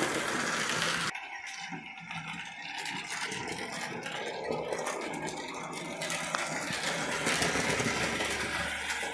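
Hornby OO-gauge model of a BR Britannia 4-6-2 steam locomotive, driven by a motor in its tender, running round the layout track: a steady motor whirr with wheels rattling over the rails. It is loudest in the first second as it passes close, drops away suddenly, then builds again as it comes back round.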